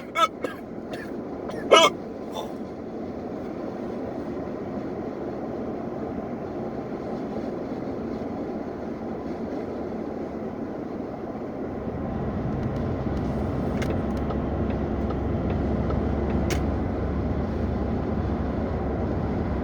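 Steady car cabin noise from the engine and tyres while driving, its low rumble growing louder about twelve seconds in. A person hiccups sharply about two seconds in.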